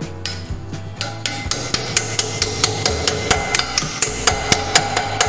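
Hammer striking a thin sheet-steel strip against a steel tube, bending it into a curve around the tube: sharp metal-on-metal strikes, about four a second, starting about a second in.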